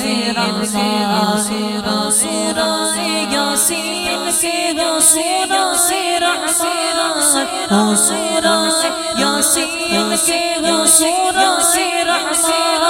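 A cappella devotional vocal backing for a hamd: layered voices hum and chant a melody between verses, over a steady ticking beat of about two strokes a second.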